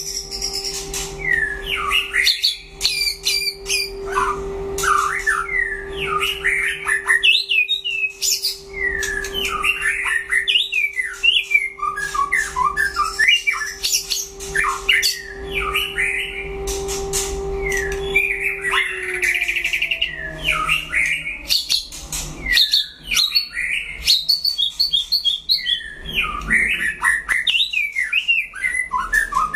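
White-rumped shama singing continuously: a rapid run of varied whistled phrases rising and falling in pitch, with sharp clicks mixed in. A steady low hum runs underneath and slides down in pitch about 19 seconds in.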